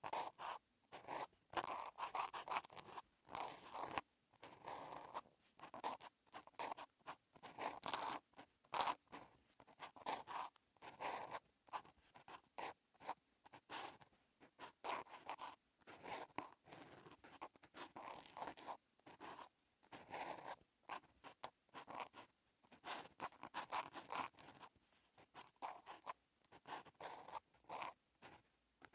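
Outline marker's felt tip scratching across notebook paper while writing Korean handwriting: a run of short, scratchy pen strokes with brief pauses between them.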